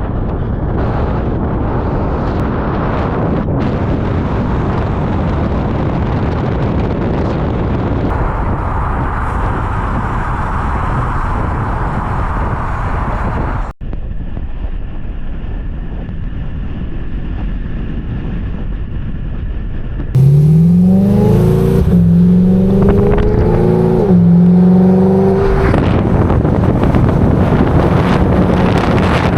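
Road and wind noise from a BMW E92 M3 being driven. About two-thirds of the way in, its S65 V8 accelerates hard, its pitch climbing and stepping through a couple of gear changes, then settles to a steady drone.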